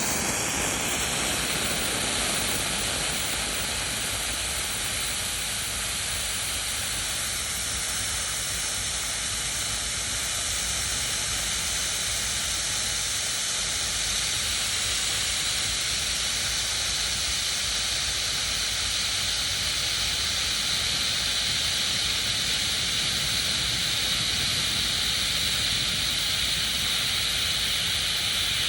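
Green Comet Höllenlicht, a handheld Bengal-type pyrotechnic flare, burning with a steady hiss.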